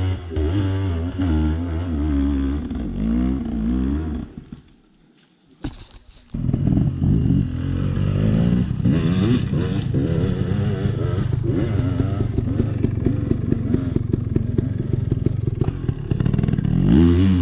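Dirt bike engines. First one revs up and down as it climbs a steep hill. After a short break about five seconds in, a bike runs close by at low revs with a fast, even beat, and revs up again near the end.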